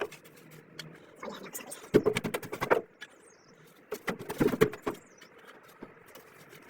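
Thick tar-like sealant being brushed onto the bottom of a swamp cooler's water tray: two bursts of rapid scratchy strokes about two seconds apart, with scattered light ticks between.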